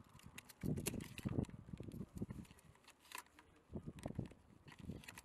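12-gauge shells being pushed one after another into the tube magazine of an M870 pump-action shotgun: a run of short, sharp clicks with duller handling knocks.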